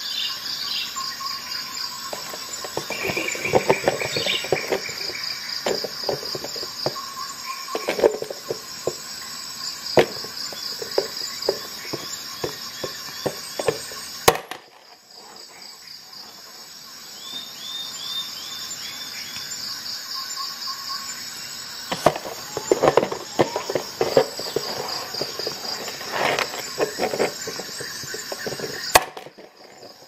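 SOG and Leatherman Surge multitool pliers cutting thin steel nails inside a plastic box: two long bouts of rapid metallic clicks, creaks and sharp snaps as the jaws are squeezed and worked, with cut pieces rattling on the plastic. A steady high-pitched pulsing chirr runs underneath.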